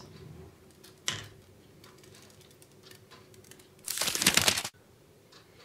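A sip from a glass of spiked seltzer over ice: a short crackly noise about four seconds in that cuts off abruptly. Before it come faint handling sounds and one light tap about a second in.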